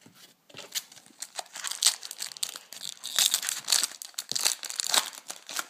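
Foil wrapper of a 2010 Bowman Chrome baseball card pack being torn open and crinkled: a dense run of crackles and rustles, busiest in the middle.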